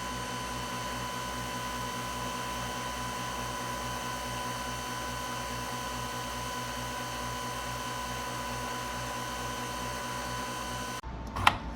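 Steady mechanical hum with a fixed high tone and an even low pulsing, cutting off near the end with a sharp click.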